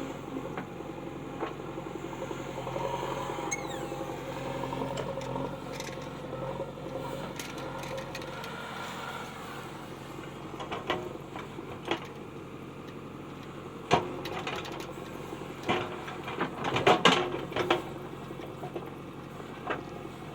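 A steady mechanical hum runs throughout, with scattered sharp clicks and knocks that bunch together in the second half.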